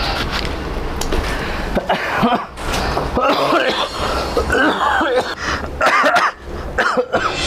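A man's acted coughing fit: a long run of repeated coughs.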